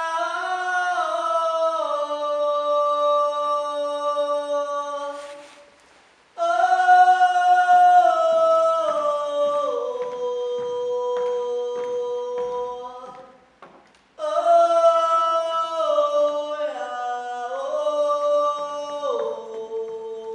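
Voices singing unaccompanied in harmony, slow held notes in three long phrases that each step down in pitch, with short breaths between them.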